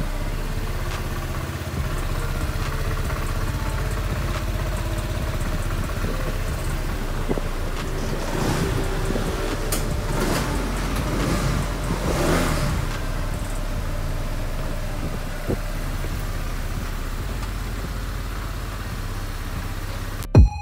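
Small single-cylinder scooter engine running steadily at idle, with the revs rising and falling a few times around the middle. The engine has been rebuilt with refurbished valves and a new cylinder.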